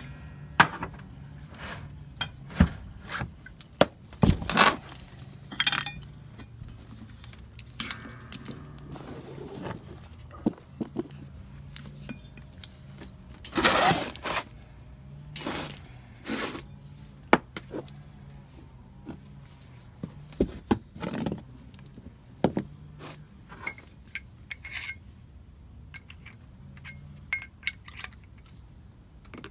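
Metal tools and equipment being handled: scattered clanks, clinks and scrapes, with a longer clatter about halfway through, over a steady low hum.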